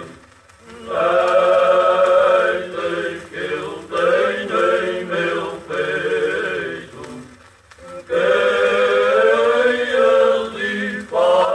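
Cante alentejano sung unaccompanied by a men's choir in long, slow, held phrases, breaking off briefly about a second in and again near eight seconds. It is an old 1952 recording.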